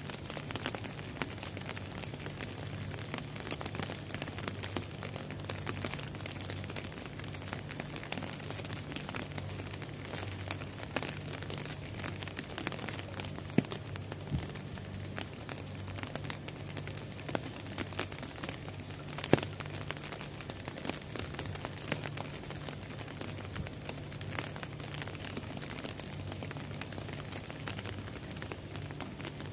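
Heavy rain pattering on glass panes: a dense, steady patter of drops with scattered sharper ticks, over a faint steady low hum.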